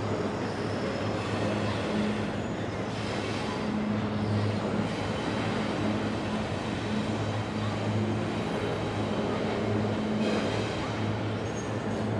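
Intermodal freight train of stacked shipping containers rolling steadily past: a continuous rumble of wheels on rail with a low steady hum underneath.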